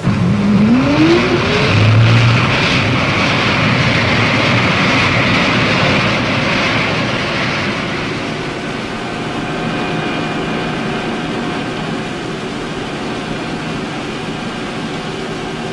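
A hydrofoil's marinized gas turbine running under power over a broad rush of water and wind. Its pitch climbs over the first two seconds. From about eight seconds in, a steady whine of several tones sits above the rush.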